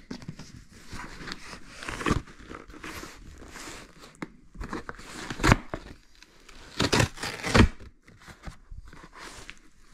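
Cardboard shipping box being handled and opened: rustling and scraping of cardboard and packing material, with several louder knocks and scrapes about two, five and a half, and seven seconds in.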